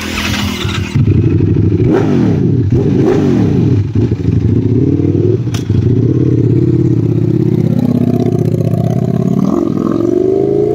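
Ducati V4 superbike's V-four engine being revved in place: the throttle is blipped over and over, so the pitch swings up and down. Near the end the engine note rises steadily as the bike pulls away.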